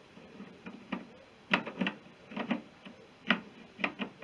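Irregular metallic clicks and clinks, about eight of them, as a BSA B31 clutch centre hub is turned and worked onto its splined shaft to line up the splines.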